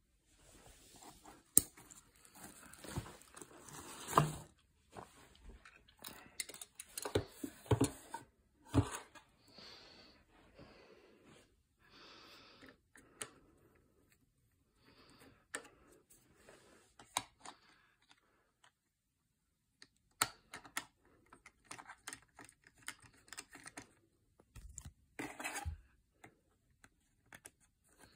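Scattered clicks, knocks and rustles of a tripod and camera being handled, with a few louder knocks in the first third and a short quiet spell past the middle.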